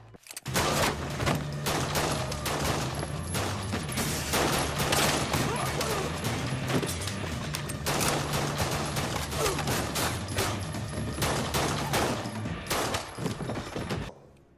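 Dense, rapid handgun fire in a film shootout: many pistol shots in quick succession over a music score. It starts about half a second in and cuts off abruptly shortly before the end.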